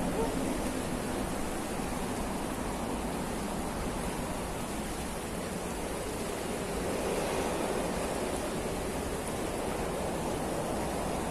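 Steady rush of a fast, shallow river churning over rocks, an even wash of water noise.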